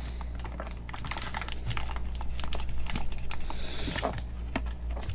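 Fingers handling an inline load resistor and thin wires while mounting it on the back of an LED third brake light: scattered small clicks and plastic crinkling, with a brief rustle about three and a half seconds in, over a steady low hum.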